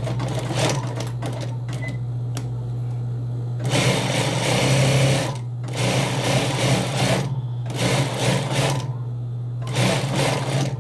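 Sewing machine stitching a seam in trouser fabric, running in four or five short runs of about a second each, stopping and starting as the fabric is guided. A steady low hum runs underneath.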